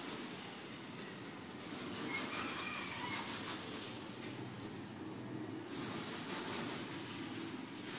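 Close handling noise of fingers working a fishing rig: light rubbing and small clicks of line, hooks and bait in two spells, over a steady low background hum.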